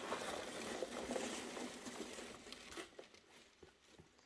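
Loose foam packing peanuts rustling as a hand rummages through them and pulls a plastic-wrapped box out of a cardboard carton. The rustling dies away about three seconds in.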